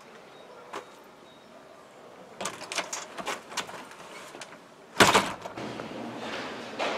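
Glass-panelled entrance door being opened: a click of the handle, then a series of clicks and rattles as the door swings open, followed by a loud thump about five seconds in.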